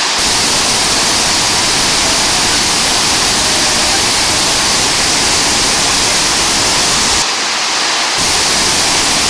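Dhuandhar Falls on the Narmada river: a loud, steady rush of a big waterfall heard up close. The deep part of the rumble drops out for about a second around seven seconds in, then returns.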